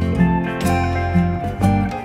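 Background music led by guitar, with strummed chords.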